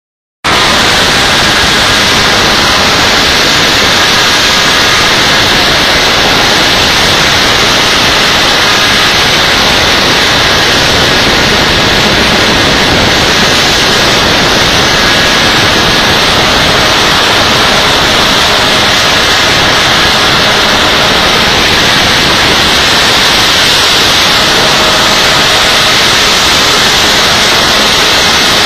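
Propane-fuelled valveless pulsejet engine running at low throttle: a loud, steady, dense noise that starts abruptly about half a second in and holds without change.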